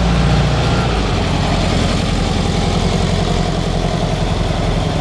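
Classic Volkswagen Beetle's air-cooled flat-four engine running steadily at low speed as the car moves off, with an even low rhythmic pulse.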